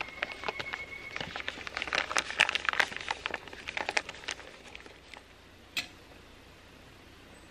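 Rapid close crackling and crinkling, densest around the middle and stopping about two-thirds of the way through, followed by one sharp click.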